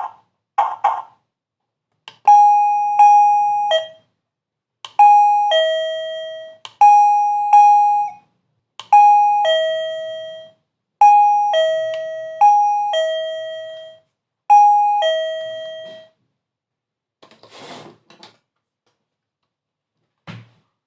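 Wireless doorbell receiver playing one of its electronic chime tunes: a run of clear, bell-like notes, mostly stepping between a higher and a lower pitch, that starts about two seconds in and stops about two-thirds of the way through. Faint short rustles or clicks come before and after it.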